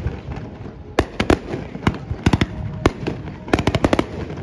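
Aerial firework shells bursting: irregular sharp bangs, a few spread through the first three seconds and a quick cluster of them about three and a half seconds in.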